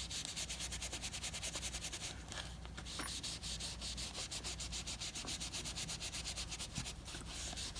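Soft, quick back-and-forth rubbing on beaver tail leather, several strokes a second: the skin being buffed by hand to polish off leather balm conditioner.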